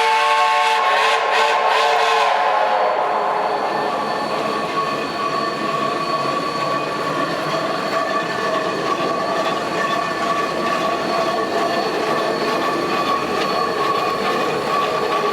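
A chime steam whistle chord cuts off about a second in, one note trailing briefly. Then geared steam logging locomotives run by with a steady rolling, mechanical train noise and a thin, high wheel squeal.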